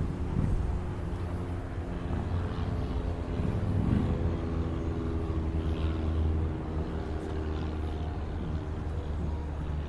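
A motor running steadily, a low hum made of several steady tones, with brief low bumps about half a second and four seconds in.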